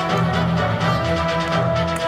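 Music with a steady beat, held chords and a bass line; no separate firework bangs stand out above it.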